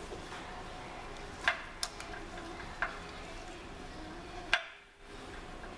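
Scattered light clicks and taps of a small plastic cover and its screw being handled and fitted by hand, about five separate clicks with the sharpest near the end.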